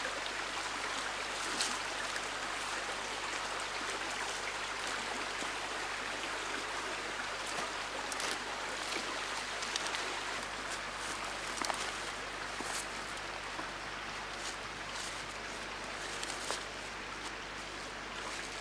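Steady rush of running water from a creek, with a few faint brief clicks scattered through.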